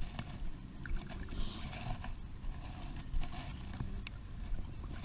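Kayak on the water: a steady low rumble of water and wind against the hull, with small knocks and clicks and a brief splashy hiss about a second and a half in.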